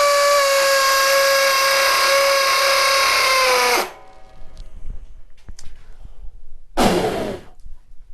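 Flex cordless hammer drill in hammer-drill mode with turbo on, drilling into a concrete block at high speed: a steady, loud motor whine over the hammering, stopping abruptly about four seconds in. A second short burst from the drill, under a second long, comes near the end.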